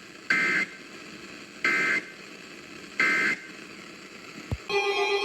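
Emergency Alert System end-of-message code: three short, raspy digital data bursts, a little over a second apart, which mark the end of the severe thunderstorm warning. Near the end, a steady sound made of several held tones begins.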